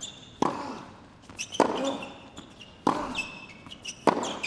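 A tennis rally: four racket strikes on the ball, about a second and a quarter apart, as the two players trade groundstrokes. Between the shots come short high squeaks of shoes on the hard court.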